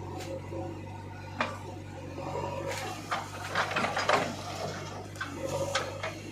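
JCB 3DX backhoe loader working, its motor humming steadily under a run of metallic clanks and scrapes. The clatter starts about a second and a half in and is busiest in the middle.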